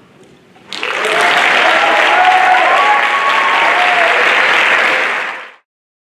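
Audience applauding, starting abruptly about a second in, with a few shouts and whoops over the clapping, then cut off suddenly near the end.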